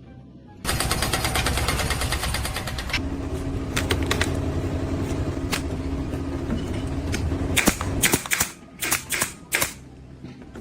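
A rapid mechanical rattle of many sharp hits a second that starts suddenly about a second in, with a steady hum underneath from about three seconds, ending in a handful of separate sharp knocks.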